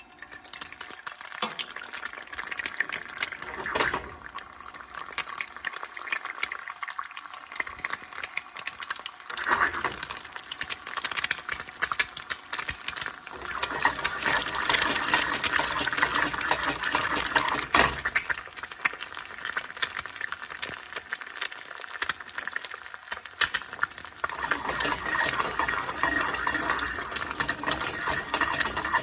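Food sizzling and crackling in hot oil in a pan, a dense run of pops that grows louder about halfway through.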